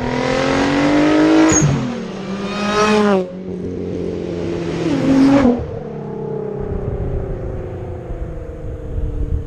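Car engine revved up three times, the pitch climbing and dropping off each time, then the revs sinking slowly after the last one.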